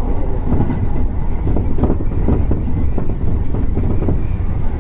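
Train running on rails: a steady low rumble with scattered short clicks.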